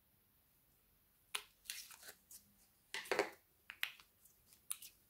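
Clear glitter slime being pulled out of its plastic cup and stretched by hand, giving a run of sharp sticky crackles and squelches that starts about a second in.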